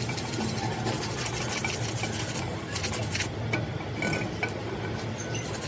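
Teeth of a steel differential gear being dressed by hand with a small abrasive tool: quick, repeated scraping strokes on the metal, over a steady low hum.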